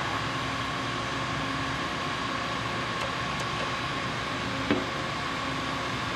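Steady workshop machinery hum and hiss, with a single sharp click about three-quarters of the way through as the cutting-head fitting is handled.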